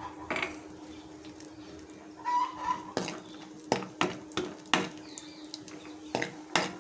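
Steel spoon scraping and knocking against a nonstick kadai while stirring cashews frying in ghee, with a run of sharp clicks in the second half.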